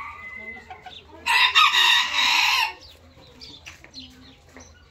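A rooster crows once, loudly, for about a second and a half starting about a second in. Hens cluck softly before and after the crow.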